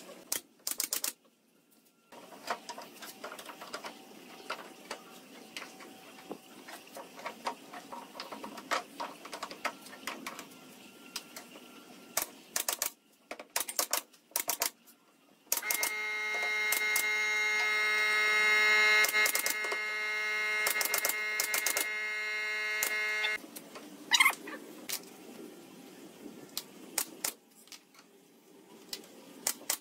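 Scattered light taps and clicks of hand tools on pine boards, then about halfway through a cordless drill runs steadily for about eight seconds, driving a screw into the door frame. A single sharp knock follows, then more light tapping.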